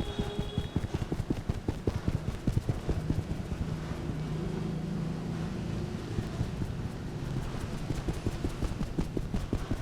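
Rapid percussive massage strokes by hand, quick slaps and taps several times a second in a steady, fast rhythm.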